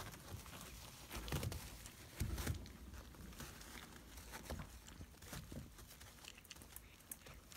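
Puppies scrabbling about on crinkly plastic-backed puppy pads: scuffing and crinkling with many small clicks, and two heavier knocks at about one and a half and two and a half seconds in.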